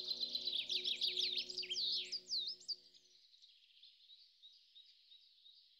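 Birds chirping in quick rising and falling calls, dense at first and thinning to faint chatter after about three seconds. Under them, held notes of soft ambient music stop about halfway through.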